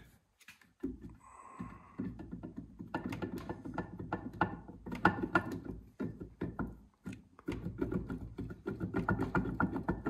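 Metal housing on an old engine block being rocked and worked by hand against the block, a quick run of metal-on-metal clacks and scrapes. The clacks start about a second in, with a short break near seven seconds.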